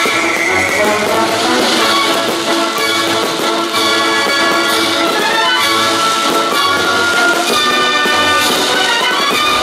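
Loud orchestral music with prominent brass, sustained chords changing from note to note.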